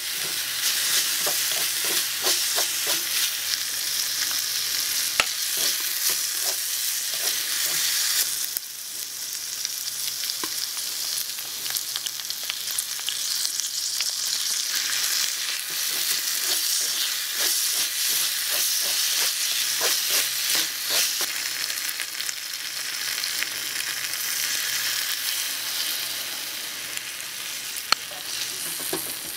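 Mushrooms sizzling in a miniature metal wok, stirred and scraped with a small wooden spatula, with many light clicks of the spatula on the pan. The sizzle dips briefly about eight seconds in, then carries on.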